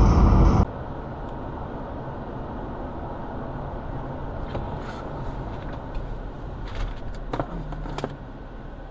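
Loud road noise from a car at highway speed cuts off abruptly under a second in. It gives way to a quieter, steady hum of road and tyre noise inside a car cruising on a highway, with a few light clicks.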